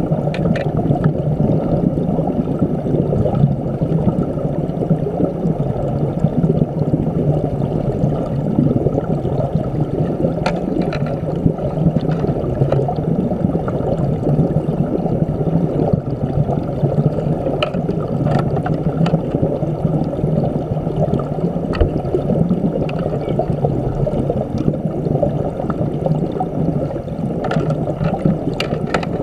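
Steady, muffled rush of river current heard underwater through a submerged camera, with a few faint clicks scattered through it.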